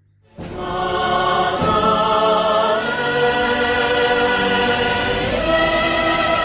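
Background music of choir-like voices holding long, sustained notes, starting suddenly about a third of a second in.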